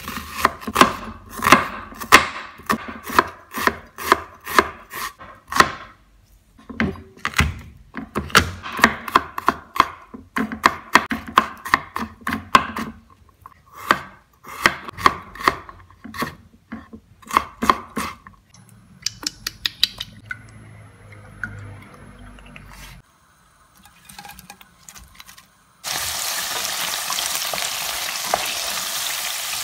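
A chef's knife slicing onion and ginger on a cutting board: runs of quick chops striking the board, with short pauses between runs. In the last few seconds, shrimp sizzle steadily in hot oil in a frying pan as they are stirred with a wooden spatula.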